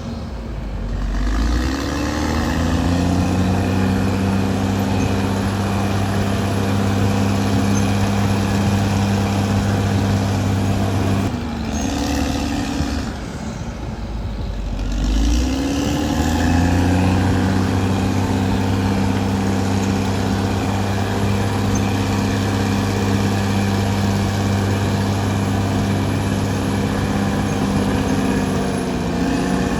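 Caterpillar D6R XL bulldozer's diesel engine revving up and running steadily under load. It drops to a lower pitch about twelve seconds in, revs up again a few seconds later and holds there, then eases off near the end.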